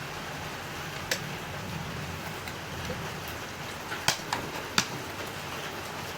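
A few sharp clicks and knocks of parts being handled while an electric scooter's rear wheel hub is taken apart, one about a second in and three close together around four to five seconds in, over a steady background hiss.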